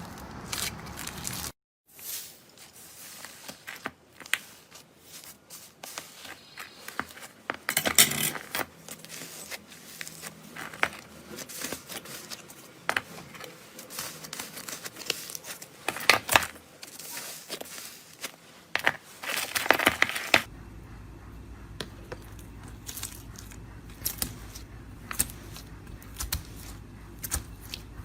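Slime being squeezed, poked and stretched by hand, giving a close run of crackles, clicks and small pops, with several louder crunchy bursts.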